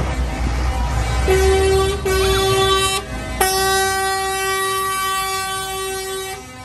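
Truck horn sounding three times: two short blasts, then one long blast of about three seconds, over the low rumble of the passing truck's engine.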